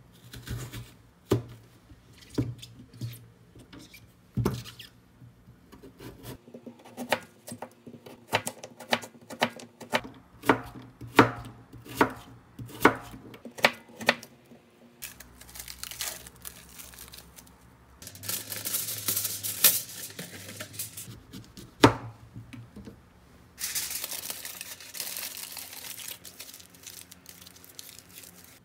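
Kitchen knife slicing Korean radish on a plastic cutting board: sharp chops against the board, coming faster between about 7 and 14 seconds in. In the latter part, plastic wrap and aluminium foil crinkle in two stretches of rustling, with one loud knock between them.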